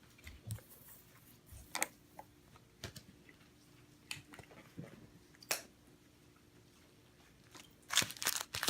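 Baseball cards and foil card-pack wrappers being handled: scattered light crinkles and taps, sparse at first and busier near the end.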